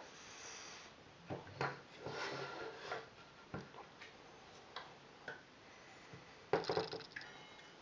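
Metal parts of an airsoft M4 gas blowback rifle's front sight and barrel, with a small wooden block, handled by hand: scattered light clicks and knocks with brief rubbing, and a quick cluster of clicks about two-thirds of the way through.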